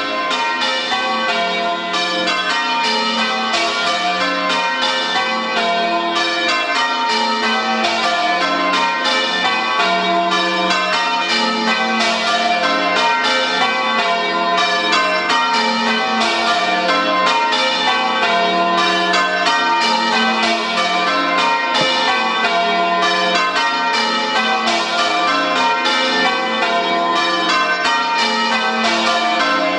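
Tower bells of St Mary's Church, Chesham, being change-rung: a steady, unbroken sequence of rapid, evenly spaced bell strikes, the tones overlapping as each bell rings on.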